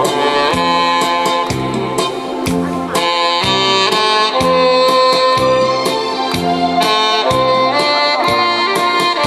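Saxophone playing a melody through a sound system over a recorded backing track with a steady beat.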